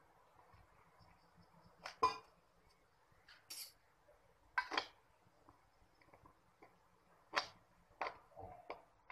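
A metal spoon clinking and scraping against a steel bowl while stirring water into gram flour to make a batter, with several sharp, irregularly spaced clinks.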